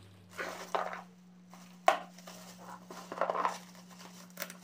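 Plastic bubble wrap being handled and crinkled in irregular rustling bursts, with one sharp click about two seconds in.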